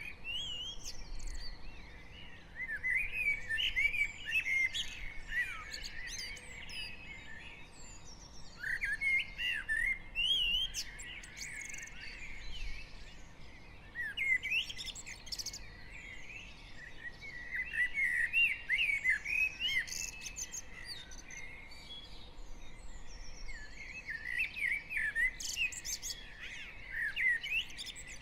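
Dawn chorus of garden songbirds: several birds sing overlapping fast, warbling and twittering phrases, which swell in bouts every few seconds.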